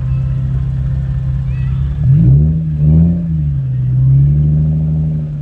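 Car engine idling with a steady drone, then revved several times from about two seconds in, its pitch rising and falling with each blip.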